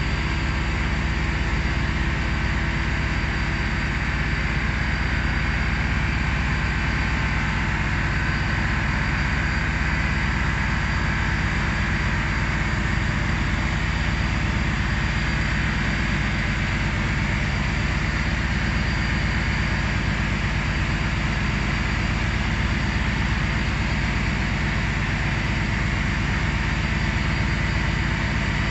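Steady, unchanging drone of running processing-plant machinery: a low hum with a thin high whine above it.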